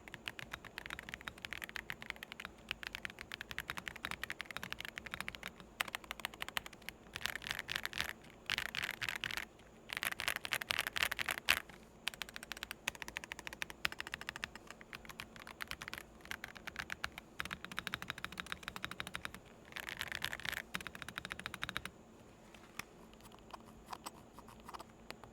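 Typing on a Redragon K725LBY (Glintstone Pro) full-size mechanical keyboard: a steady clatter of key clicks, with faster, louder runs of keystrokes in the middle and sparser strokes near the end.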